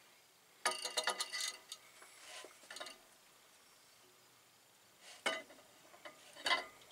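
Metal clinking and scraping as an Eaton Fuller Solo clutch's two discs and intermediate plate, slid on a spline shaft, are worked against the flywheel and onto alignment studs. A quick cluster of ringing clinks comes about a second in, softer knocks follow, and two sharp clinks come near the end.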